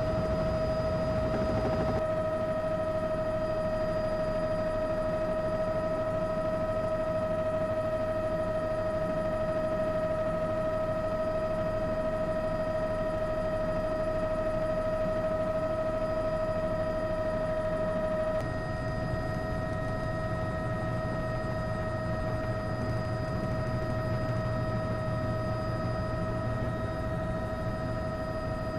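Steady hum made of several fixed tones over a bed of noise; it drops slightly in level and shifts in tone about eighteen seconds in.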